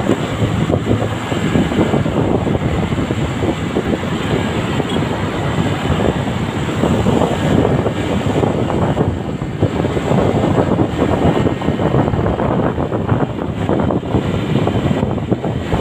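Motorcycle on the move: steady wind buffeting the microphone, mixed with the bike's running and road noise.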